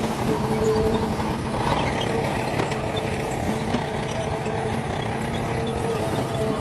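Heavy diesel earthmoving machinery running steadily, with a low rumble and a constant engine hum.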